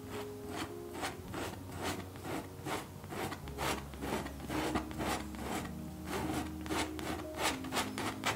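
Palette knife scraping acrylic paint across a stretched canvas in repeated short strokes, about two to three a second.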